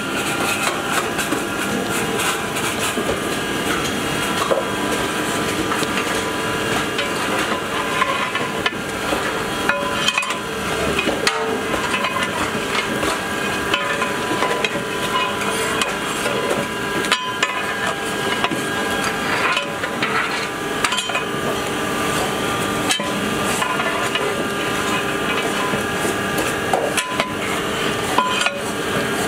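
Long metal spatula scraping and knocking against a large steel cooking pot as chunks of mutton are stirred, with frequent sharp clanks over a steady background hum.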